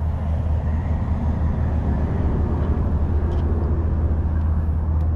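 Steady rumble of road traffic, with no sudden events.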